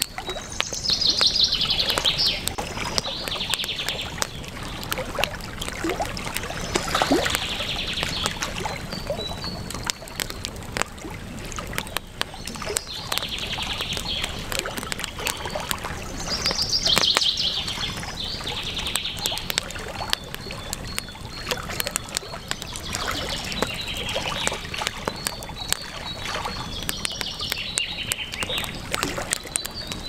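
Campfire crackling with frequent sharp pops, over a steady rush of river water. Birds chirp in short high phrases every few seconds.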